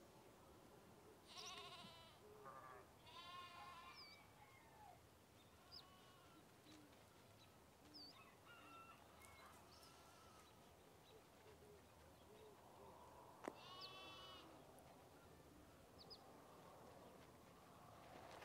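Livestock bleating faintly: a few separate wavering bleats, two close together about a second and a half and three seconds in, and another about two-thirds of the way through.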